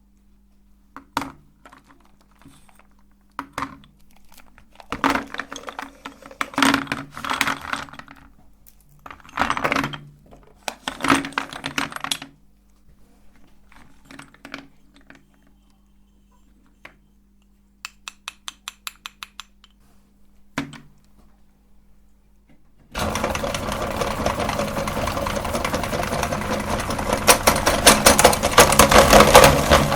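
Scattered clunks and clatter of things being handled, with a quick run of about eight ticks. Then, about three-quarters of the way through, an electric meat grinder starts and runs loudly with a dense, rapid rattling crunch as it grinds chalk, growing louder near the end.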